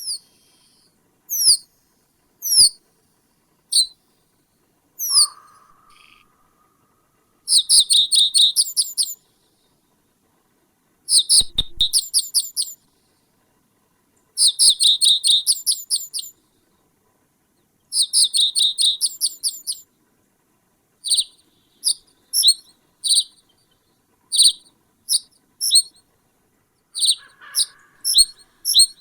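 A small songbird calling and singing: a few sharp, high, falling chirps, then four quick trills of about a second and a half each, a few seconds apart, then single chirps about once or twice a second. A fainter, lower call is heard twice, about five seconds in and near the end.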